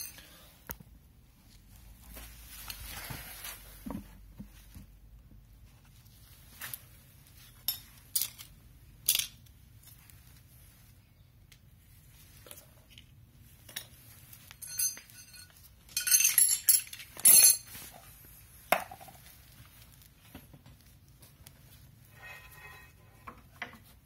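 Scattered light metallic clinks and taps of tools and parts handled at a car's rear brake disc and hub during copper-grease work. A brief cluster of louder ringing clinks comes about two-thirds of the way through.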